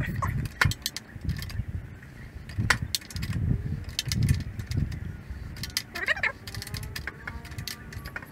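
Irregular metallic clicks and clinks of a long-handled socket wrench working a motorcycle exhaust mounting bolt, over low thumps and rustling from handling the tool.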